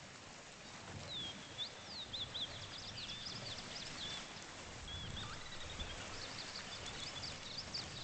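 Marsh birds calling over a faint outdoor background, starting about a second in: many quick high chirps and short whistled notes, overlapping.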